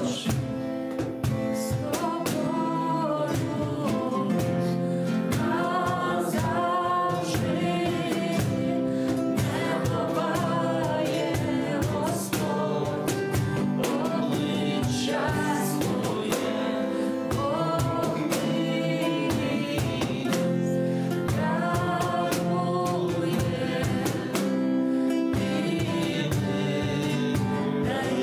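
Christian worship song: sung phrases rising and falling over sustained instrumental chords.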